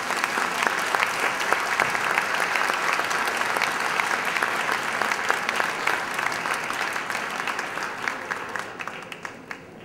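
Audience applauding: dense clapping that starts right as the speech ends and thins out near the end.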